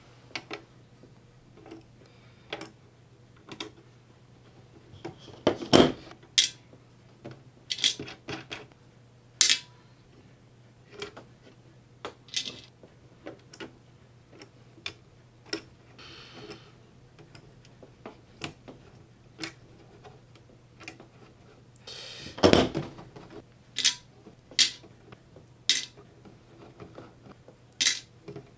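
Small metal clicks and clinks as a wrench works the hex nuts and washers off the potentiometer shafts of a Pioneer DJM-400 mixer's top plate, and the loose parts are set into a metal tray. The clicks come irregularly, with two louder clanks, one about six seconds in and one a little past the middle.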